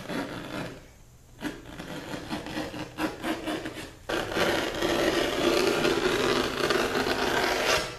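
Vinyl upholstery sheet being cut out for a seat cover, a rasping cutting sound. There are a few short stretches at first, then a longer, louder, steady cut from about four seconds in that stops just before the end.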